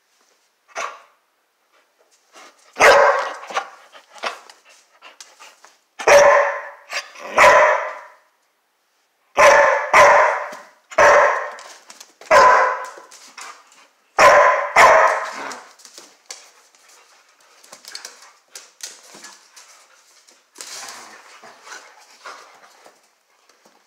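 A curly-coated doodle-type dog barking in loud single and paired barks, about ten in the first fifteen seconds, then fainter scuffling and clicks as the dogs play.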